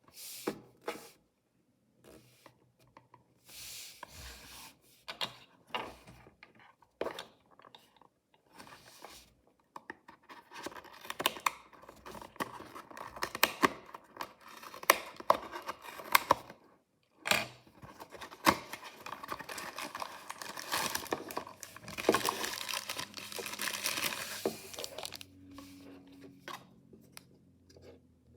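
Mystery toy packaging being torn open and crinkled by hand: scattered rips and rustles with sharp clicks at first, then dense crinkling and tearing for most of the second half, easing off near the end.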